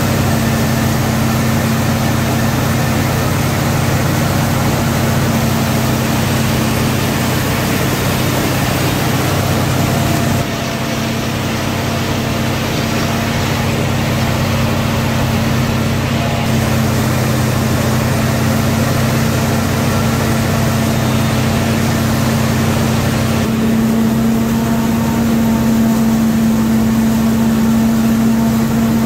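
CLAAS self-propelled forage harvester running steadily under load as it cuts and chops maize for silage, a steady heavy engine hum. Its tone and level shift abruptly about ten seconds in and again near the end.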